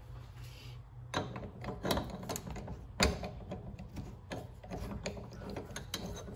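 Steel parts of an AXA quick-change tool post being handled and fitted on the lathe's compound: an irregular run of metal clicks and knocks that starts about a second in, the loudest knock about three seconds in.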